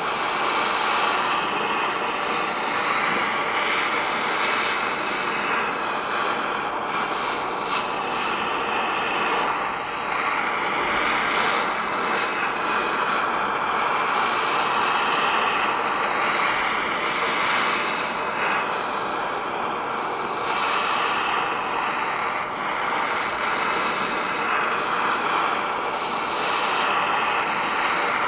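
Heat gun blowing steadily, warming the engine's front cover so that it can be pulled free.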